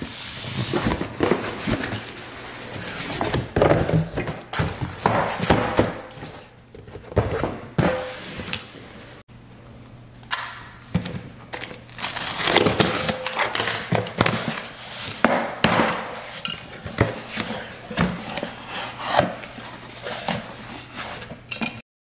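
Cardboard shipping boxes being opened by hand on a stone countertop: flaps pulled apart and packing tape slit with a box cutter, with irregular crinkling, scraping and knocks. The sound stops abruptly near the end.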